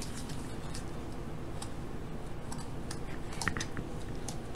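A utensil clicking and scraping against a mixing bowl as eggs and sugar are stirred into a paste: light, irregular ticks, with a few close together about three and a half seconds in.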